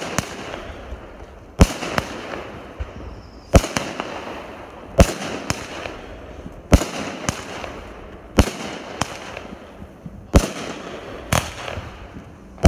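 Aerial fireworks bursting overhead, with a sharp bang every second or two and crackling and hiss between the bangs.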